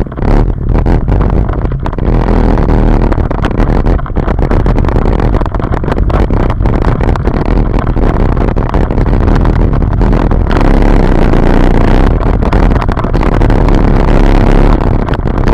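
Arctic Cat Wildcat side-by-side UTV driving off-road, its engine running steadily under way, with frequent short knocks and rattles throughout.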